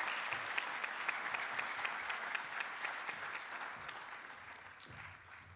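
Audience applauding, many hands clapping together, the applause dying away toward the end.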